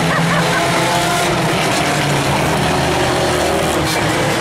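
Several claimer-class stock car engines running at race speed as the pack laps the oval: a steady, loud blend of overlapping engine notes.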